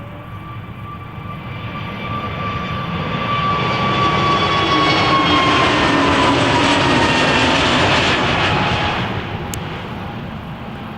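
Airbus A321neo jet engines passing by at takeoff power, swelling to a peak about midway and then fading, with a whine that drops in pitch as the aircraft goes past.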